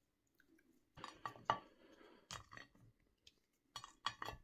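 Ice cream bars and their wooden sticks being handled over a ceramic plate: a series of light, sharp taps and clinks against the plate, starting about a second in.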